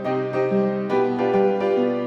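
Background piano music: a steady run of struck notes over a held low note.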